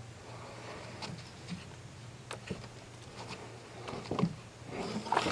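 Light knocks, bumps and scrapes of a canoe being boarded from a wooden dock, growing louder and more frequent about four seconds in.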